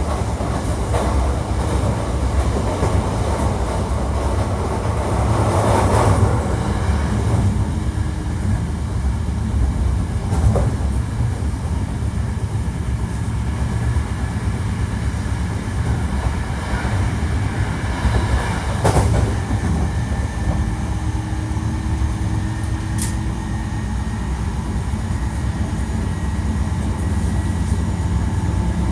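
Hankyu 1300 series electric train running at speed: a steady rumble of wheels on rail with some clickety-clack and a few short clicks.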